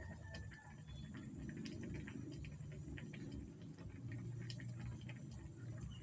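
Squid adobo simmering in a wok: irregular small pops and ticks of the thick ink sauce bubbling, a few a second, over a low steady rumble.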